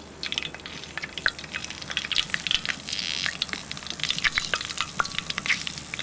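Crumbed prawns deep-frying in hot oil in a cast-iron camp oven: a dense, steady sizzle of quick crackles and pops, briefly louder and hissier about three seconds in.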